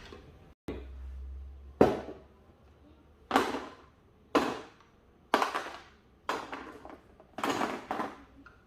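A series of sharp knocks, about one a second, with a low hum for about a second before the first.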